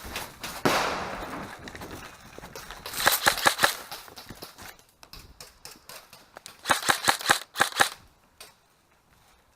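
Airsoft guns firing two rapid bursts of shots, one about three seconds in and one about seven seconds in, each lasting under a second. A rushing hiss comes in suddenly about a second in.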